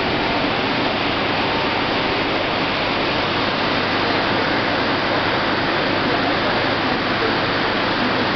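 Steady, even hiss of an aseptic filling line running, with no knocks or changes in level.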